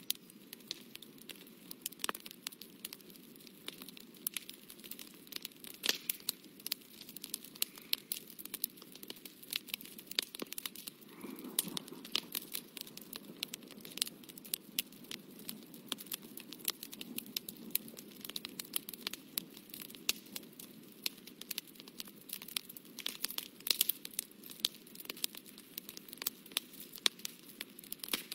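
Paper crinkling and crackling as it is handled and pressed, with dense irregular clicks and a softer rustling swell about eleven seconds in.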